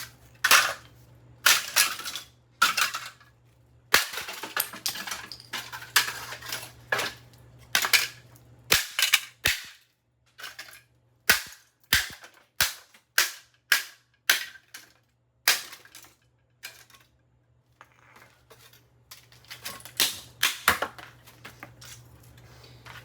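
Repeated sharp, cracking blows smashing the cheap plastic body of an RCA RC142 alarm clock radio. There are about two dozen hits at irregular intervals, with a short lull a little past the middle.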